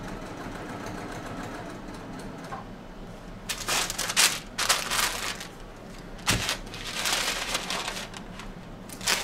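A stiff sheet rustling in repeated bursts as it is handled over the fabric panel, starting about three and a half seconds in. A single thump about six seconds in as a steam iron is picked up or set down.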